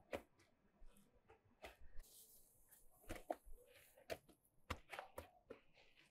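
Hands slapping and patting raw bread dough flat against the inside wall of a tandoor: a string of short, soft slaps, about one every second or so, some in quick pairs.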